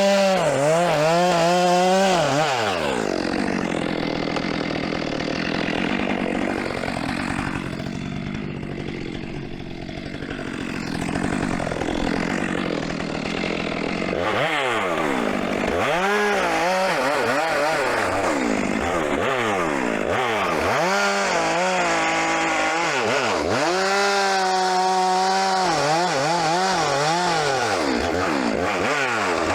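Two-stroke chainsaw cutting through firewood logs at full throttle. The engine pitch drops and wavers as the chain bites into the wood under load, and climbs back to a steady high rev between cuts.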